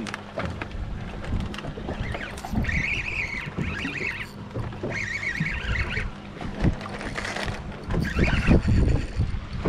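Wind buffeting the microphone and water lapping around a small fishing boat on the water, with a faint steady hum underneath. Several high, wavering chirring sounds about a second long come and go.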